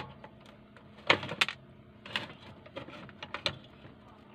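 Plastic housing of a Sansui radio-cassette player being pried apart by hand after its screws are out, giving a series of sharp clicks and knocks as the two halves come loose.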